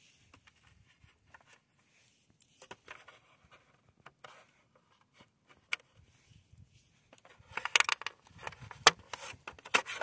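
Fingers working small screws and a plastic lid on a Kyosho Blizzard RC snowcat: faint scattered clicks and scrapes, then a flurry of louder clicks and rattles about eight seconds in.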